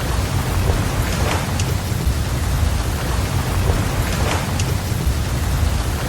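Steady heavy rain over a deep low rumble, a mixed rain-and-surf ambience track. A faint swell recurs about every three seconds, the sign of a short repeating loop.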